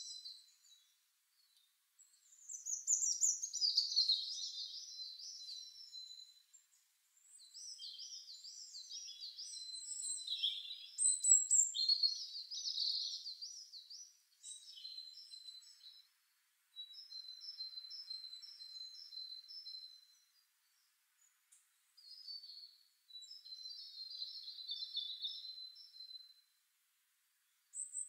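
Birdsong sound effect: a small songbird sings a series of high trilled and warbling phrases, each a few seconds long, with short silent gaps between them.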